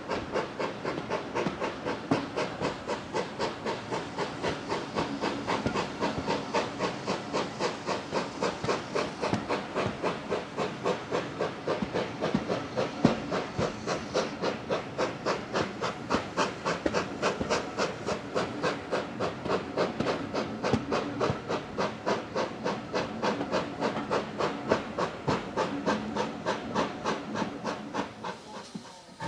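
GWR Manor class 4-6-0 steam locomotive 7802 Bradley Manor hauling a train, its exhaust chuffing in an even beat of about four a second, heard from a coach further back over the running noise of the carriages. The sound fades away near the end.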